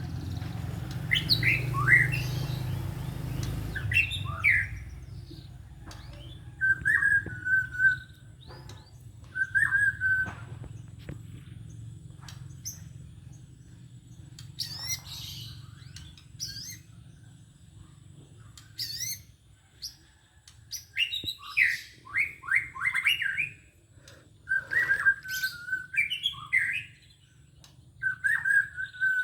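White-rumped shama (murai batu) singing: a short stuttering phrase held on one pitch comes back several times between quick rising and falling whistled notes.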